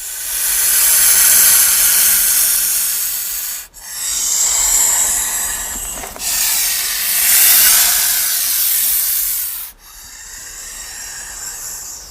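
King cobra hissing in four long, heavy breaths, each two to four seconds long, with a brief pause between them; the last is quieter. It is a warning hiss.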